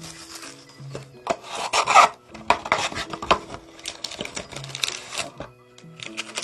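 Trading-card box packaging being handled and torn open: scraping, rubbing and crinkling of cardboard and plastic wrap in several short, noisy swells.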